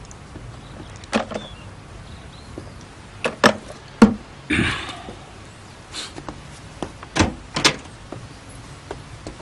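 Scattered sharp clicks and knocks of things being handled, with a short rustle about four and a half seconds in, over a low background hum.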